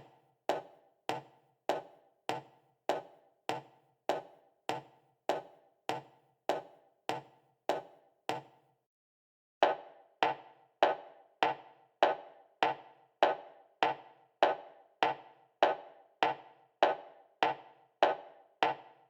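Footsteps of hard-soled shoes (heels or leather shoes) walking at an even pace, a sharp click with each step, a little under two steps a second. The walking stops about eight and a half seconds in, and after a short pause a second, slightly louder run of steps begins.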